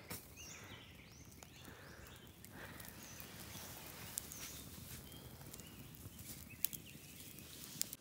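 Faint forest ambience with a few scattered high bird chirps and occasional sharp clicks.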